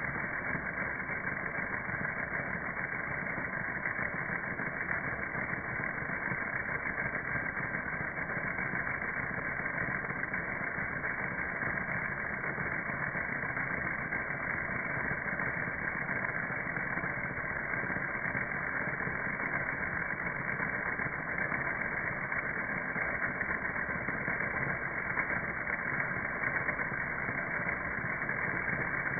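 Small DC motor driving a 3D-printed PLA universal-joint shaft and plastic propeller, heard slowed down as a steady, even drone with nothing above a fairly low pitch.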